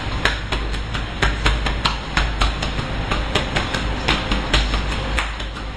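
A run of sharp taps or slaps, about three a second and unevenly spaced, over a steady low rumble.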